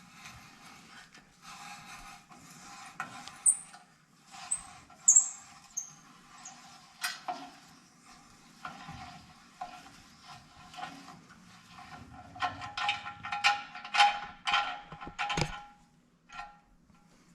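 Steel tap being turned with a crescent wrench to cut 3/8-16 threads in quarter-inch steel frame: irregular metal scraping with short high squeaks and sharp metallic clicks, the clicks coming thick and fast about twelve to fifteen seconds in.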